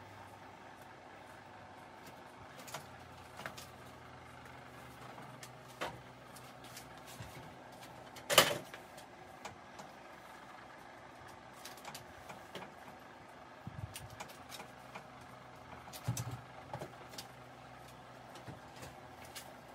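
Clicks and knocks of a bicycle being worked on in a repair stand, with one sharp, loud knock about eight seconds in, over a steady low hum.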